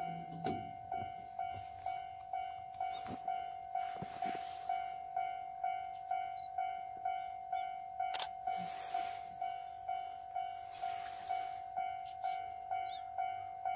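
Japanese railway level-crossing warning bell ringing steadily at about two strokes a second, warning of an approaching train.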